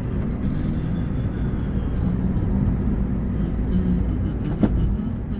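Steady low rumble of road and engine noise heard inside a moving car's cabin, with a brief click about four and a half seconds in.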